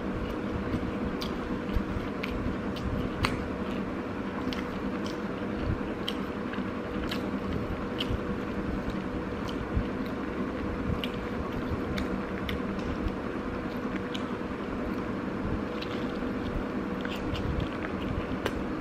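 A person chewing a mouthful of rice close to the microphone, with scattered short clicks and smacks of the mouth, over a steady background hum.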